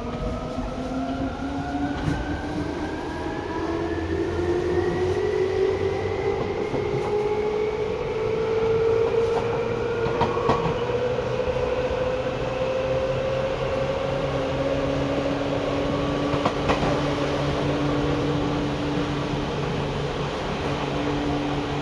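Seibu 2000 series electric train under way, its traction motors whining in several tones that rise steadily in pitch as the train gathers speed, over the rumble of the wheels. A steady tone joins about two-thirds of the way in, and there are two short knocks from the running gear, about halfway and later on.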